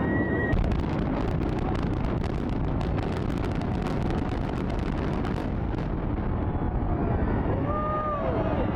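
Demolition implosion of the Tropicana hotel towers: a deep, continuous rumble, with a rapid string of sharp cracks through the first half or so.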